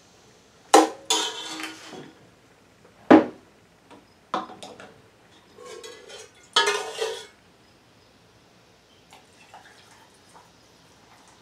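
Metal ladle clanking and scraping against the inside of a stainless steel pot as the last liquid is scooped out: several separate sharp knocks with a short ring, the sharpest about three seconds in.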